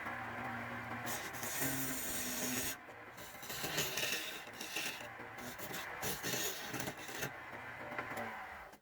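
A tool working wood, giving a scraping, rasping noise that shifts in texture every second or two and cuts off abruptly near the end.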